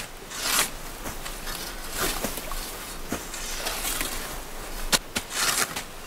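Sickles and a long-handled tool slashing through tall grass and brambles: repeated swishing strokes, with a few sharp ticks.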